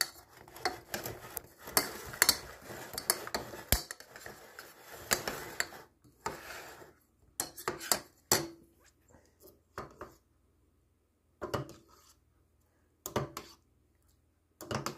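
Metal spoon stirring a wet, lumpy mixture in a ceramic bowl, scraping and clinking against the sides. It goes steadily for the first six or seven seconds, then comes as a few separate clinks with pauses between.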